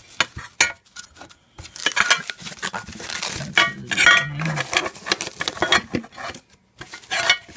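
Sheet-metal equipment enclosure being handled and unwrapped from paper packing: paper rustling with a run of short metal clinks and knocks, busiest in the middle.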